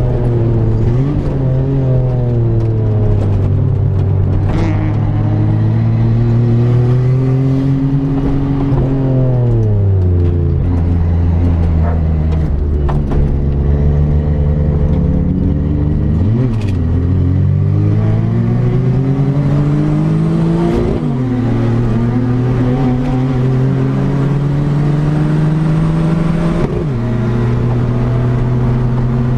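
Turbocharged Daihatsu Mira L500 race car's engine heard from inside the cabin, lapping at racing speed. The revs climb steadily, fall as the driver lifts off about nine seconds in, and hold low for several seconds. Then they pull up again, with sudden drops in pitch about 21 and 27 seconds in as the driver shifts up.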